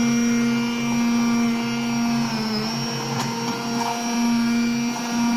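Hand-held immersion blender running steadily, puréeing a thick cooked gravy into a fine paste. Its motor whine dips briefly in pitch about halfway through.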